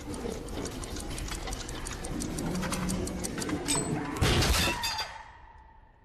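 Rapid mechanical ticking from the spring-loaded reverse bear trap's timer mechanism, then a loud metallic crash a little past four seconds in as the trap comes off. The ticking stops after the crash.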